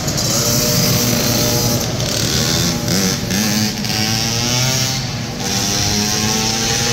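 Small 50cc–65cc youth motorcycles running laps of a dirt track, their engines revving up and easing off through the turns, with the pitch climbing in the second half.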